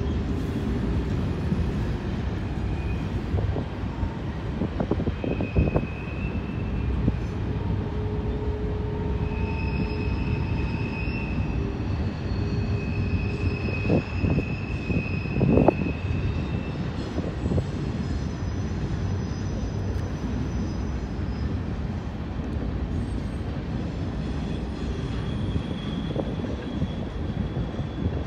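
BNSF freight train cars rolling by with a steady rumble on the rails. Long high-pitched wheel squeals come and go, and a few sharp clanks are heard, the loudest about halfway through.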